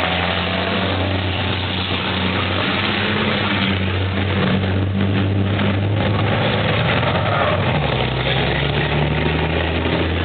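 Racing trucks' big diesel engines running through a chicane and pulling away, a loud steady engine tone whose pitch shifts, with a lower note coming in about eight seconds in.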